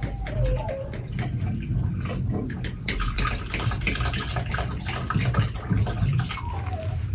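Water pouring in a thin stream from a clay jug into a glass bowl of flour, with a steady trickling that gets busier about halfway through.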